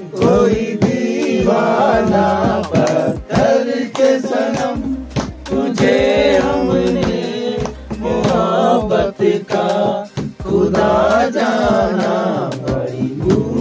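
Men singing a Hindi song together in long, rising and falling phrases, with frequent sharp taps through the singing.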